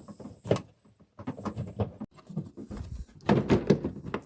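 Irregular plastic clicks and knocks from handling the fuel-flap lock actuator, with a denser spell of rattling about three seconds in.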